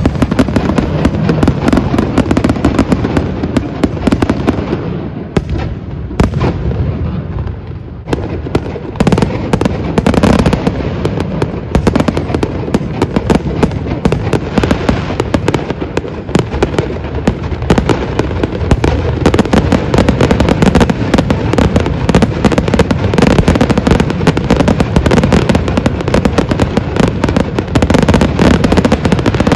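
Fireworks show: a rapid, dense string of bangs and crackles that thins out briefly about five to eight seconds in, then turns dense again.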